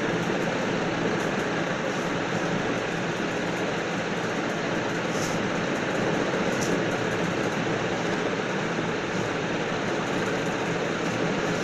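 A steady, even rushing noise with no rhythm or pitch, with two faint ticks about five seconds in and again a second and a half later.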